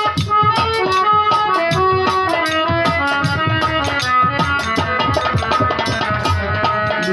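Instrumental interlude of a devotional bhajan: a melody instrument plays a run of held notes over a steady, busy drum rhythm, with no singing.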